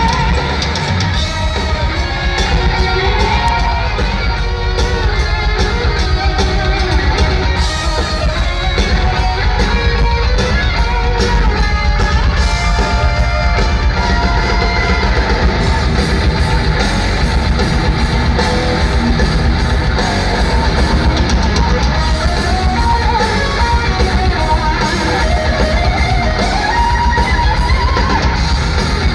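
Heavy metal band playing live: a bending lead electric guitar line over distorted rhythm guitar, bass and drums, with little or no singing.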